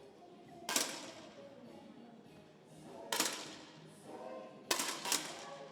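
10m air rifles firing: four sharp cracks, one a little under a second in, one about three seconds in, and two in quick succession near the end.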